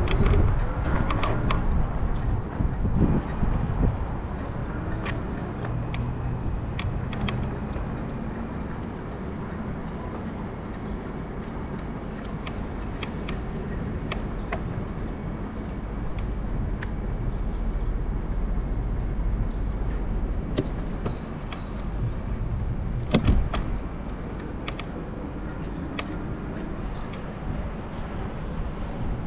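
Bicycle riding over pavement: a steady low rumble of tyres and wind, with scattered clicks and rattles from the bike, and a brief high double beep about two-thirds of the way through.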